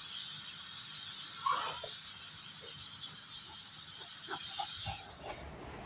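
A steady high-pitched hiss, with a few faint short squeaks over it. The hiss drops away about five seconds in.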